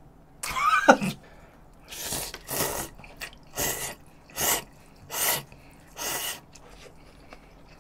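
A short voiced exclamation with a falling pitch about half a second in, then instant noodles slurped up in a series of about six short, loud slurps.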